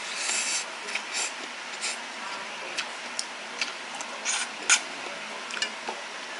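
Wooden chopsticks stirring and lifting instant ramen noodles in a bowl: an irregular string of short clicks, taps and wet rustles, with one sharper click about three-quarters of the way through.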